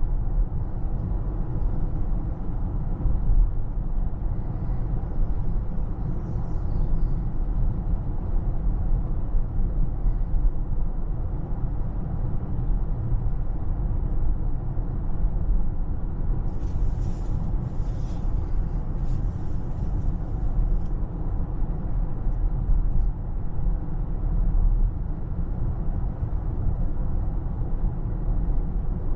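Steady low rumble of a 2024 Toyota RAV4 Hybrid driving along a road: tyre and road noise at an even level. A few short, higher hissing sounds come a little past halfway.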